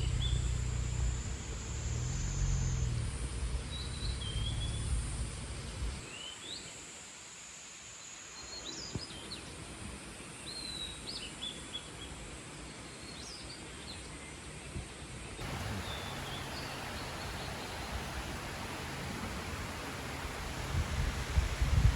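Outdoor ambience: small birds chirping in short, quick calls every second or two over a steady hiss, with a low rumble in the first few seconds. The background changes abruptly several times.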